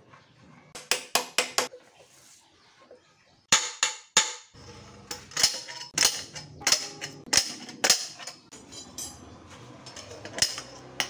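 Metal tools knocking and clanking against a motorcycle's wheel axle and hub hardware as the wheels are taken off. The knocks come in irregular clusters: about five quick ones a second in, a few more around the middle, then a run of a dozen or so, with a couple more near the end.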